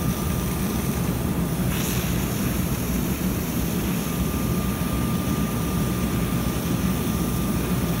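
Steady low drone and rushing noise of a charged fire hose line discharging a foam stream through its nozzle, with a faint steady whine.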